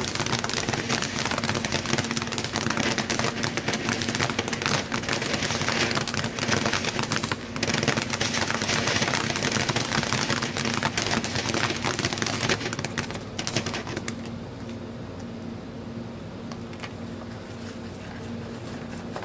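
A ground fountain firework, a 'Three Colours' fountain, sprays sparks with a loud, dense hiss and crackle that stops about fourteen seconds in as it burns out.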